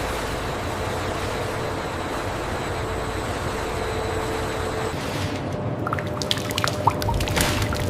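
A steady hiss with a faint hum, which about five seconds in gives way to liquid pouring and dripping, with scattered sharp drips.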